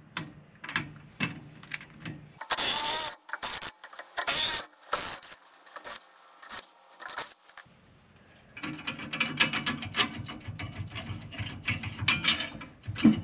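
Tools loosening the 19 mm U-bolt nuts that clamp the rear leaf spring to the axle of a Mercedes Sprinter van. Several short, loud bursts of tool noise come from about two to seven seconds in, followed from about halfway through by a few seconds of fast clicking and rattling as the nuts come off.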